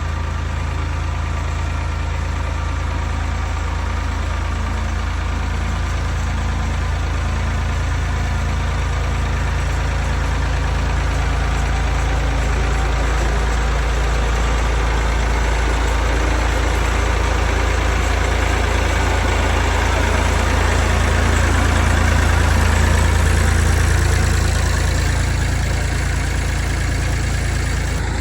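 Tractor engine running steadily while pulling a scrape blade across loose dirt. It grows louder, peaking a few seconds before the end, then eases off slightly.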